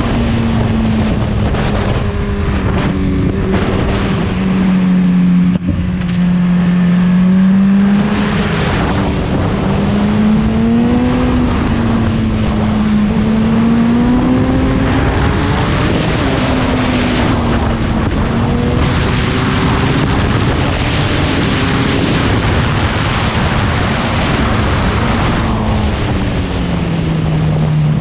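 Motorcycle engine running at road speed, its pitch rising and falling again and again as the throttle opens and closes, over a steady rush of wind and road noise.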